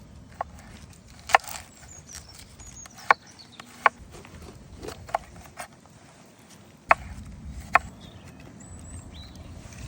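Scattered sharp knocks, about seven at uneven spacing, over a low outdoor background, with a few faint high chirps.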